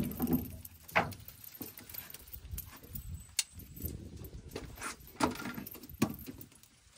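Scattered sharp knocks and clatter on a boat, about five spread unevenly across the seconds, over a low rumble.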